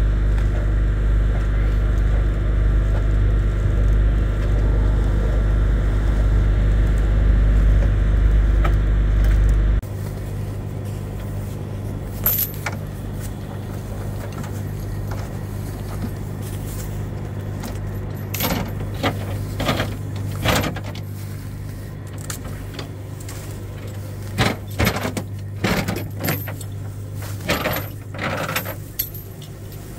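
A truck engine idles steadily throughout, loud at first and lower from about ten seconds in. Over it come repeated short metal clanks and chain rattles from rigging being handled, busiest over the last ten seconds.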